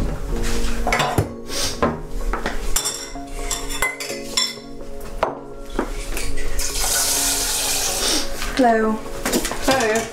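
Crockery, glass and cutlery clinking as they are handled at a kitchen counter and sink, in scattered sharp knocks. A tap runs briefly, about seven seconds in.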